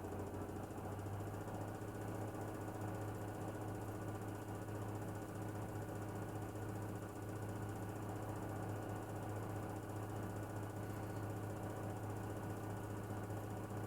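A Miele household appliance running with a steady low hum and a fast, even mechanical rattle: the noise the owner is documenting as a fault.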